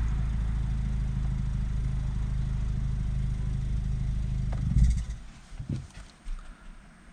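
2017 Kia Forte S four-cylinder engine idling steadily on freshly replaced ignition coils, then switched off about five seconds in with a short shudder as it stops. A few faint knocks follow.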